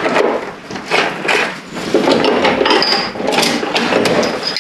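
Irregular clatter and clicking of metal hand tools, a spanner and sockets being handled and set to work, with a couple of brief metallic pings.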